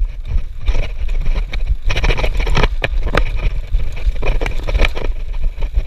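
Mountain bike rattling and clattering over a bumpy dirt-and-grass trail, with a string of sharp knocks from the frame and drivetrain. Wind rushes over the microphone as a constant low rumble.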